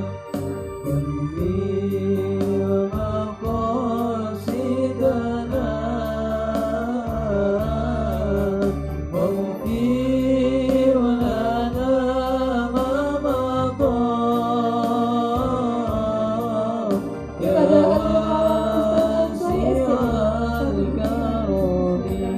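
Male students' voices singing a gliding, ornamented melody over sustained electronic organ or keyboard chords.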